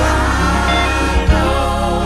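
Live gospel choir singing with a band, over sustained bass notes and a few drum hits.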